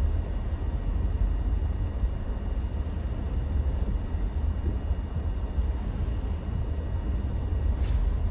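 Steady low rumble of a vehicle on the move, with a faint steady whine over it.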